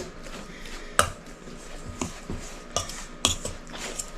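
Measuring cup and utensils knocking and scraping against a mixing bowl while flour is scooped, with a sharp knock about a second in and a few more clicks near the end.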